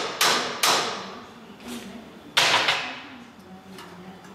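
Hammer taps nudging a welded steel-tube landing gear box sideways to center it on the axle tube: four sharp strikes with a short metallic ring, the one about two and a half seconds in the loudest.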